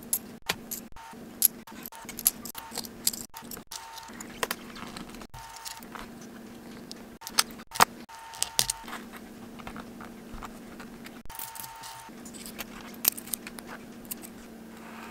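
Small metal watch parts and a steel link bracelet clinking and jangling against a stainless steel wire-mesh basket as they are handled and set into it: irregular sharp clicks and rattles.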